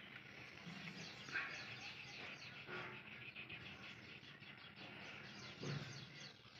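Quiet, with faint bird chirping in the background and a few brief soft handling sounds.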